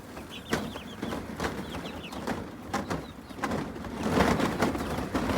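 Young chickens peeping in short high chirps and murmuring, with a few sharp knocks. Wind noise grows louder near the end.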